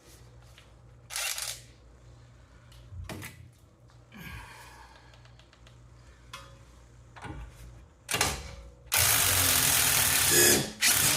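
Impact wrench run in a loud burst of about two seconds on an 18 mm sway bar link nut, after a few small clinks of tools and socket. The link's ball stud spins with the nut instead of the nut coming loose.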